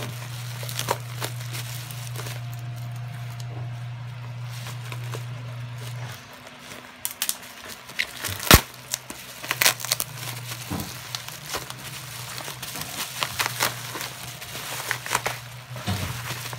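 Black bubble-wrap packaging crinkling and crackling as hands pull it open. It brings sharp crackles and clicks, with one loud crack a little over eight seconds in. A steady low hum runs under the first six seconds, then stops.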